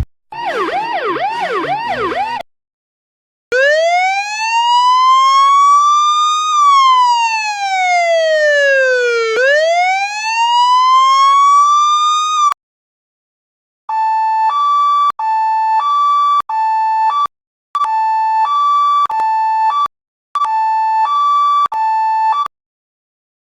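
Electronic police siren sound effects in three patterns. First comes a couple of seconds of fast repeated whoops. After a short gap, a slow wail climbs, falls and climbs again over about nine seconds, then cuts off abruptly. After another gap comes a two-tone hi-lo alternation.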